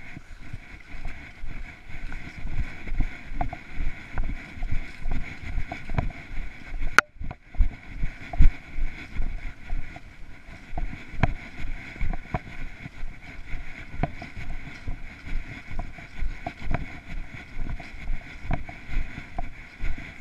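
A person's footsteps walking over dry grass and leaves, about two steps a second, with clothing rustle and a steady hiss of wind on the microphone. A sharp click and a brief dropout come about seven seconds in.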